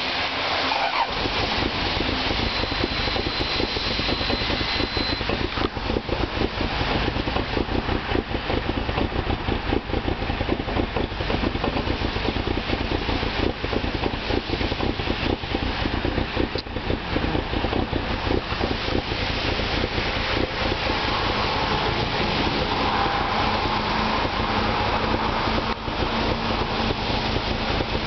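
Toyota Land Cruiser LJ78's 2.4-litre turbodiesel engine catching about a second in and then idling steadily, in a video about the truck's starting trouble.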